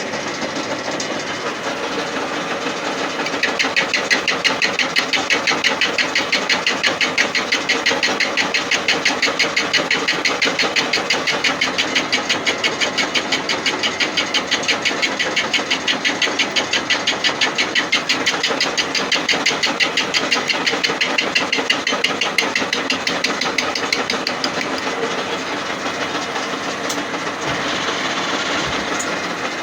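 1A625 lathe running at 355 rpm with a single tool bit spun in the chuck, taking an interrupted fly-cutting facing cut across a cast-iron bar under power feed. The cutter strikes the iron about six times a second, once per revolution, as a steady rhythmic knocking over the machine's running. The knocking is louder from about three seconds in and eases off near the end.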